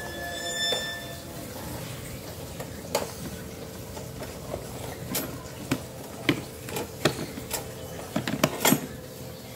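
Hard plastic toolboxes being handled: scattered light clicks and knocks of plastic lids and latches, coming thicker near the end, over a steady faint hum.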